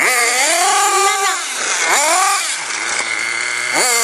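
Carson nitro RC car's small two-stroke glow engine revving in repeated bursts: the pitch shoots up, holds, then drops back as the throttle is released, about every two seconds.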